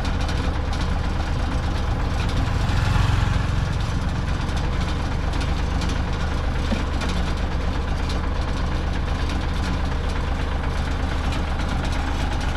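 Heavy vehicle engine running at a steady idle, swelling briefly louder about three seconds in.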